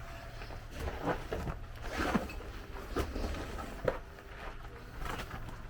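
Irregular footsteps scuffing on rock, with clothing rustling, over a low rumble of wind on the microphone.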